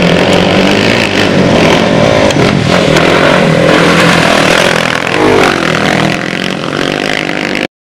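Dirt bike engines running as the bikes ride past, revving, with the engine pitch dipping and climbing again about five seconds in; the sound cuts off abruptly near the end.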